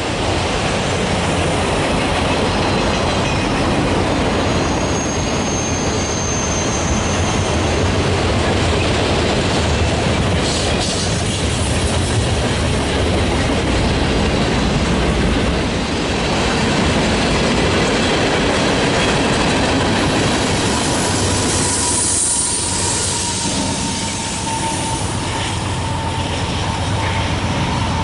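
Freight train rolling past close by: a steady rumble of wheels on rail with clickety-clack over the joints. A thin, high wheel squeal rises about five seconds in. A second, lower squeal starts a little past twenty seconds and runs on.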